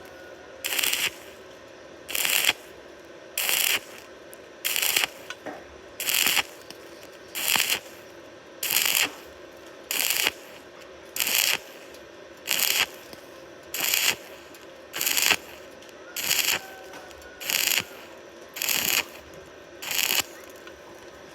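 Arc welding on thin iron sheet done in short intermittent strikes: about half a second of crackling arc, then a pause, repeated roughly every 1.3 seconds, about sixteen times in a steady rhythm.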